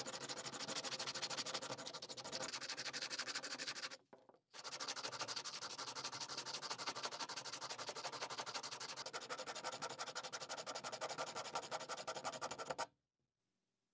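Sandpaper scraping rapidly back and forth by hand over the end grain of a pine wood block, shaping it. It pauses briefly about four seconds in and stops suddenly near the end.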